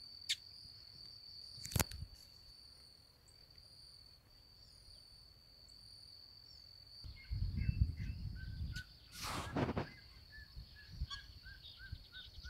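An insect's steady high trill, weakening about halfway through. Then rustling and handling noise as someone moves through the brush, and a quick run of short, repeated bird calls, about three a second, near the end.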